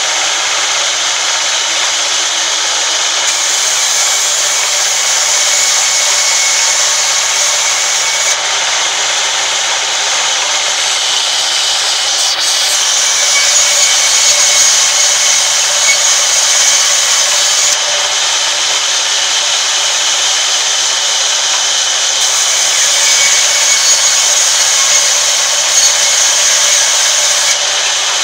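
Sawmill band saw ripping a long wooden plank as it is fed through the blade: a steady, loud, high-pitched cutting noise with a constant whine running under it, a little louder about halfway through.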